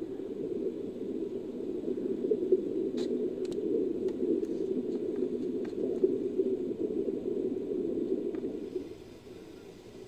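Made-up African manatee creature sound effect built from manatee and Desmostylus recordings: a steady, low, rough noise that falls away about nine seconds in.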